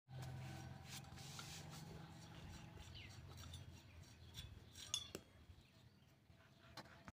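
Faint metallic clinks and rubbing of metal parts as a bicycle crank and chainring are handled, over a low hum, with a sharper click about five seconds in.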